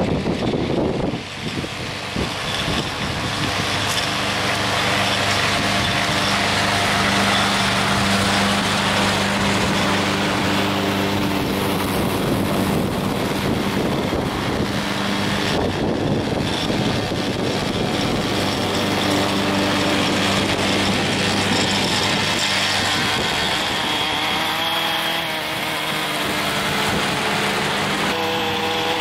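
Small gasoline lawn-equipment engines running steadily: a 20-inch push mower and a string trimmer cutting grass. A higher, wavering engine tone comes in near the end.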